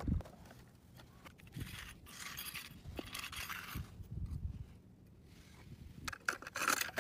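Plastic toy transporter truck and toy cars being handled and pushed through snow: a few irregular, short scrapes and rustles of plastic against snow.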